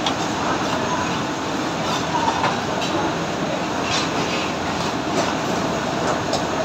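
Steady rushing background noise of a commercial kitchen's cooking range and extraction hood, with a few short clinks and scrapes of a metal ladle stirring curry in a large steel pan.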